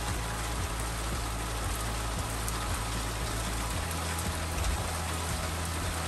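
Steady rain falling on a wooden deck and lawn, an even hiss with scattered small taps of drops.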